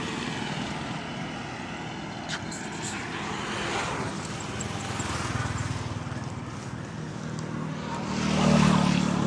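An engine running steadily, growing louder about eight seconds in, with a single sharp click a little over two seconds in.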